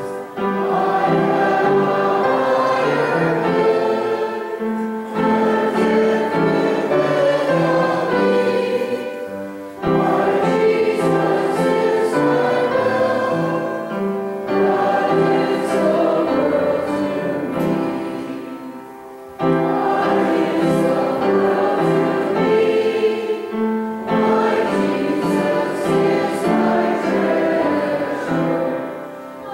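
A church congregation singing a hymn with organ accompaniment, in sustained phrases of about five seconds with short breaks between them.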